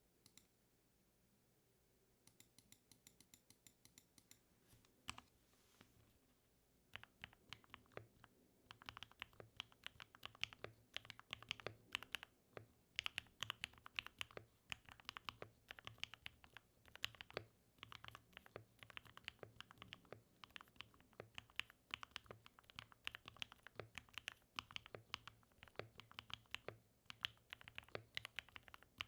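Mode 80 mechanical keyboard with lubed and filmed Gateron Black Ink v2 linear switches and PBT keycaps being typed on. A few evenly spaced keystrokes come first, then from about seven seconds in steady, fast typing.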